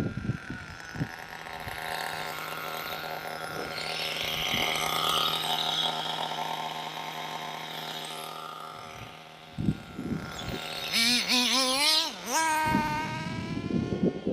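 Nitro RC buggy's two-stroke glow engine idling with a steady note, then revved in several quick throttle blips, the pitch swooping up and down, about eleven seconds in. A few short sharp knocks come at the start and around ten seconds in.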